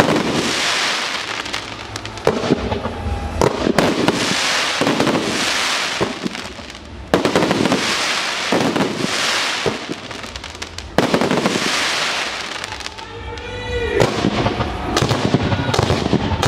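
Fireworks display: aerial shells bursting with sharp bangs, followed by waves of dense crackling from crackling-star effects that swell and fade about every three to four seconds.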